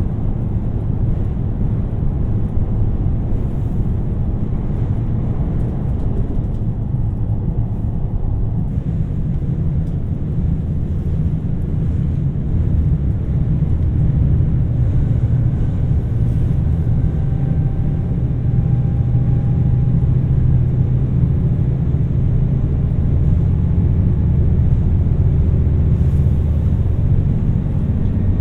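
KiHa 2700 series diesel railcar running, a steady deep rumble with a faint whine in the middle, growing slightly louder later on.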